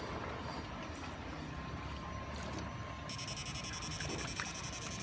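A small motor running steadily with a low hum; about three seconds in, a high steady whine joins it.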